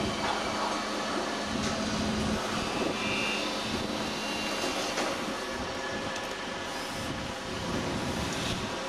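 Berlin S-Bahn class 480 electric multiple unit running into a station and slowing, a steady running and rolling noise. A low hum stops about two seconds in, and a brief high squeal comes about three seconds in.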